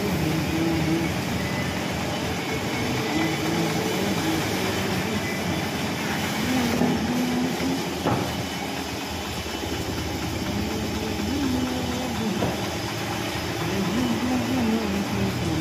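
A steady mechanical drone of running machinery, with faint wavering tones through it.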